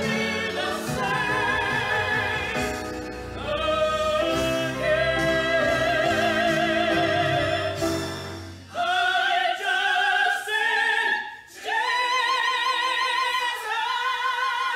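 A woman and a man sing a worship song with strong vibrato, accompanied by a grand piano. About two-thirds of the way through, the low accompaniment drops away and mostly the voices carry on.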